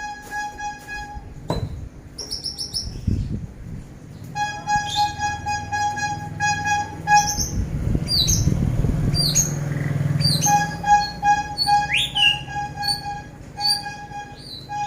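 Bird chirps and calls: quick rising and falling notes, repeated many times, over a steady whistle-like tone that stops and restarts several times. A low rumbling noise comes in near the middle.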